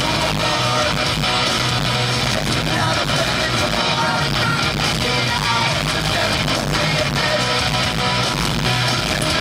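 Live rock band playing loudly in an arena, guitars to the fore with singing, heard from the seats among the crowd.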